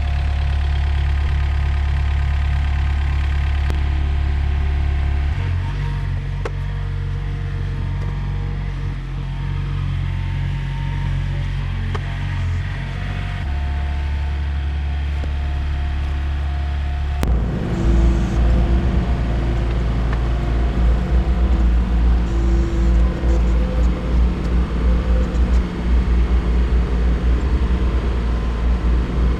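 Takeuchi TB145 mini excavator's diesel engine running. About 17 seconds in the sound changes suddenly to a heavier, pulsing rumble as the machine is driven to roll the track forward onto the sprocket.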